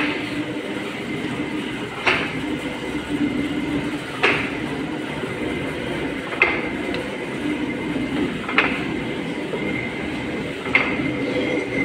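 Large lathe running, turning the welded front head of a Daemo rock breaker, with a steady machine hum and a sharp knock at an even beat, about every two seconds.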